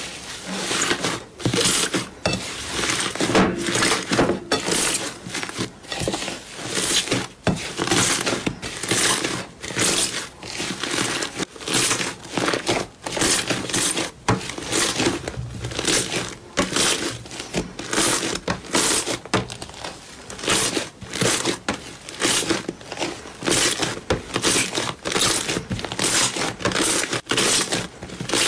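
Slime being squeezed, stretched and pressed by hand, making a dense crackling and crinkling with sharp pops coming in clusters about once or twice a second.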